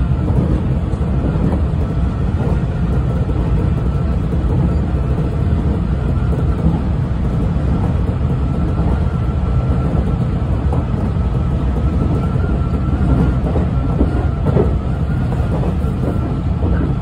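115 series electric train running along the track, heard from inside the car behind the driver's cab: a steady rumble of wheels on rail and running gear.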